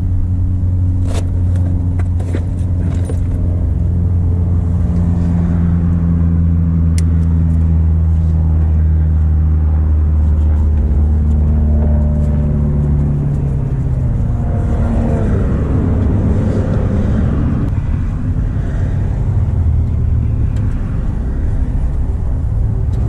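A machine running with a steady low hum made of several tones, whose pitch drifts slowly downward and then turns rougher and wavering about halfway through. A few short clicks and taps come near the start.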